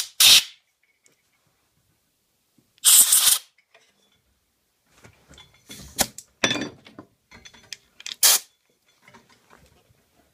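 Short puffs of air blowing the wood shavings out of a freshly drilled hole in hardwood: a few quick blasts, the longest about three seconds in, with light knocks and clatter of the wood block being handled in between.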